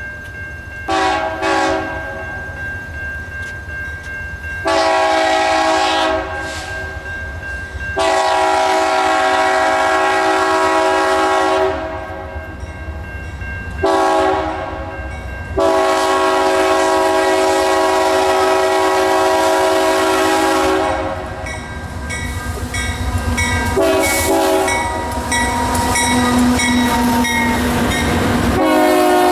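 Union Pacific diesel locomotives leading a freight train, sounding a multi-note air horn as they approach: a short toot, then long, long, short, long blasts, the standard grade-crossing warning. Near the end the horn sounds again more softly over the rising engine rumble and wheel noise as the locomotives pass close by.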